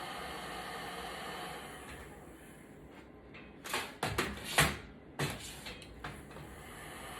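A quick cluster of short scraping and snapping sounds over about two seconds, as the adhesive tape holding an iPad's screen is pulled out with pliers. A steady hiss fades out before them.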